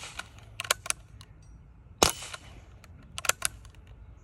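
A single sharp shot from an Umarex Ruger 10/22 .177 CO2 air rifle about two seconds in, with a short ring after it. Fainter clicks come about half a second to a second after each shot.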